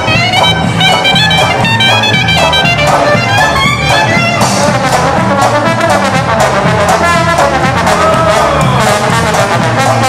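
Small acoustic swing band playing a rumba: upright bass, banjo and bass drum keep a steady rhythm under a high clarinet solo, which gives way about four and a half seconds in to a trombone solo.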